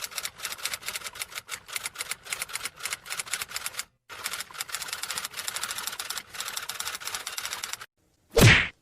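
Typewriter sound effect: rapid, uneven key clicks with a brief pause about halfway, then a short, loud downward-sweeping burst near the end.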